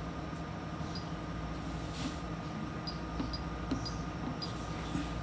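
Steady low hum of the SUNLU FilaDryer S2 filament dryer running while it heats, with a faint steady tone and a few faint short high ticks.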